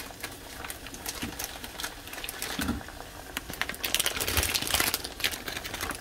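Water with crabs in it at a rolling boil in a pot, bubbling with quick, irregular popping clicks that grow thicker and louder about four seconds in.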